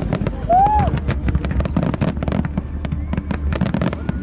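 Fireworks display: dense, continuous bangs and crackles, many per second, over a low rumble.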